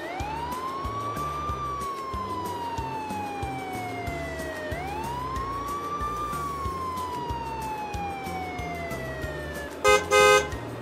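Police siren wailing in two slow cycles, each rising quickly and then falling slowly, over a background music beat. Near the end, two short loud blasts cut in.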